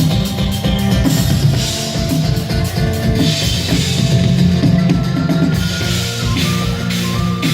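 Live instrumental music from a faire band: a drum kit keeps a steady beat under held, droning low notes and a sustained melody line.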